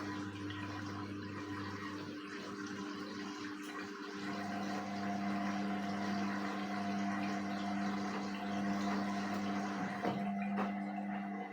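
Indesit WISN 101 front-loading washing machine in its rinse cycle: water rushing through the machine over a steady electrical hum, which cuts off abruptly at the very end.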